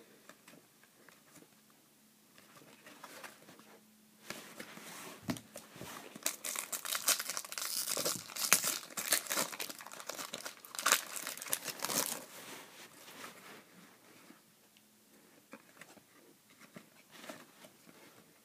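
Foil wrapper of a baseball card pack being torn open and crinkled in the hands. The crackling starts about four seconds in, is densest for the next several seconds, and dies down after about twelve seconds.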